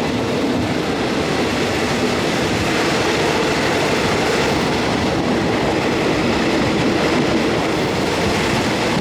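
Passenger train running along the line, a steady, even noise of the moving carriage.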